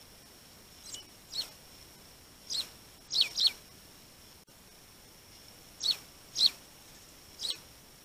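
Sparrows chirping: about eight short, sharp chirps, each dropping quickly in pitch, some in quick pairs.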